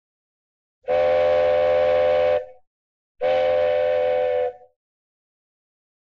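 Cartoon train whistle giving two toots of about a second and a half each. Each toot is a steady chord of several tones.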